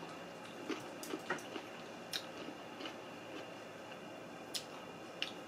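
Close-miked chewing of a mouthful of food: soft wet mouth smacks and clicks at irregular moments, over a faint steady hiss.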